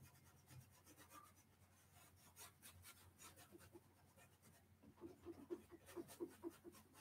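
Faint scratching of a paintbrush dabbing and scrubbing acrylic paint onto a canvas, in short strokes that turn into a quicker run of about four a second from about five seconds in.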